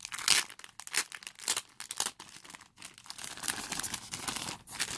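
Thin clear plastic packaging torn open and crinkled by hand: a run of irregular sharp crackles.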